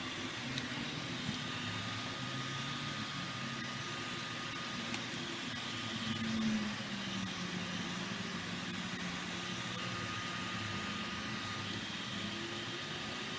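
Heat gun running steadily, its fan blowing hot air onto a phone's back glass to soften the adhesive, with a brief swell about six seconds in.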